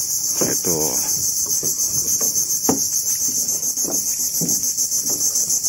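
Steady, high-pitched insect chorus droning without a break, with a few faint knocks underneath.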